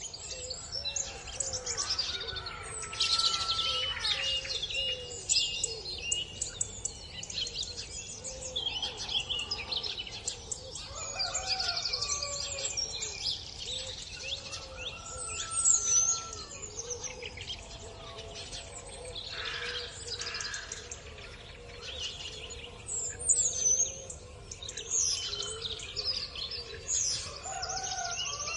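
Rural dawn chorus: many songbirds singing and chirping at once in a dense, overlapping mix of high trills and whistles, with lower repeated calls underneath.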